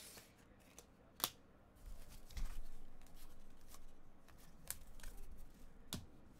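A stack of trading cards being handled and slid through the fingers, a soft rustle with a few sharp clicks.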